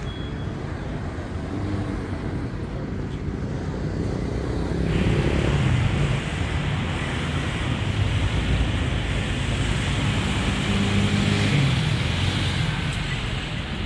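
Road traffic on a busy street: cars running past with a steady mix of engine hum and tyre noise, growing louder as vehicles pass about five seconds in and again near the end.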